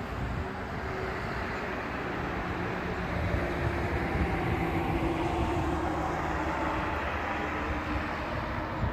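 Airbus A340-300's four CFM56 jet engines running at low power while the airliner waits and taxis: a steady engine noise with a faint hum that grows a little louder partway through.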